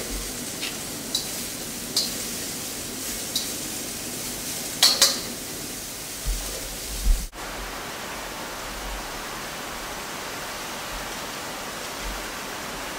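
Julienned vegetables sizzling in olive oil in a wok over a gas flame, stirred with metal tongs that clink lightly against the pan a few times. About seven seconds in the sound cuts off abruptly and gives way to a steady, even kitchen hiss.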